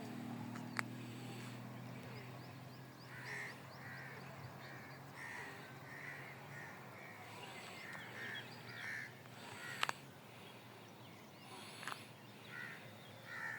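A crow cawing over and over in short, rhythmic calls, with a few sharp knocks scattered through and a low steady hum in the first half.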